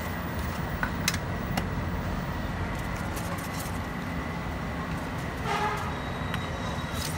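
Street traffic: steady low hum of vehicle engines. A few light clicks come in the first two seconds, and a short higher-pitched sound about five and a half seconds in.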